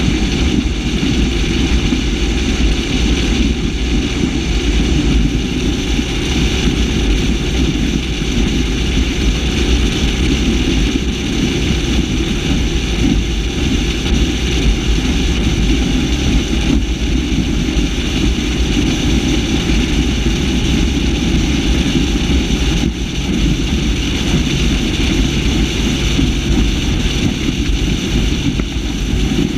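The 8.1-litre big-block V8 MerCruiser 496 HO engine of a Warlock 25 SXT catamaran running steadily under way. Hull water noise and wind on the deck-mounted microphone are mixed in with it.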